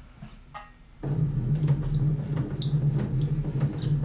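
Electric sewing machine starts up about a second in and runs steadily, its needle stitching through a sheet of paper, a steady hum with scattered sharp ticks.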